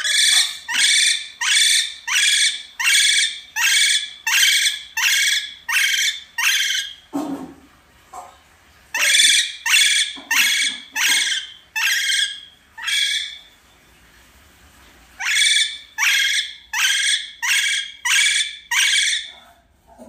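Indian ringneck parakeet screeching harshly over and over, about two calls a second, in three long runs with short pauses between them; the calls of an angry, agitated parrot.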